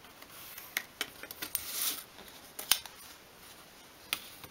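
Pencil drawing a line across thin card along a steel ruler: a soft scratchy stroke, with a few sharp clicks as the ruler and card are shifted on the cutting mat.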